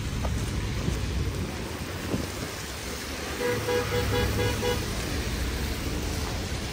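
Street traffic on a rain-wet road: a steady low rumble and hiss of cars and tyres. About halfway through comes a quick series of about five short, evenly spaced beeps.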